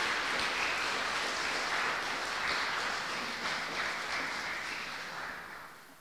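Audience applauding steadily, the clapping fading away over the last second or two.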